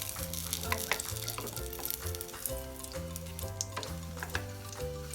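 Pancake batter sizzling in a buttered frying pan, with a few sharp clicks, over background music with a stepping bass line.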